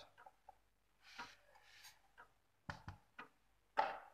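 Kitchenware being handled on a countertop: a soft scrape about a second in, then a few light knocks and clicks, the loudest near the end, as a plastic bowl and a steel cup are moved and set down beside a small metal pot.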